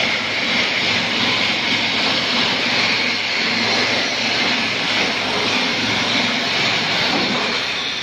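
A loud, steady rushing noise with no rhythm or speech, brightest in the upper-middle range over a faint low hum, easing slightly near the end.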